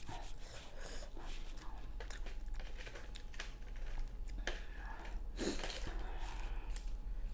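Close-up eating sounds: chewing and biting, with irregular short clicks and crunches, the loudest about five and a half seconds in.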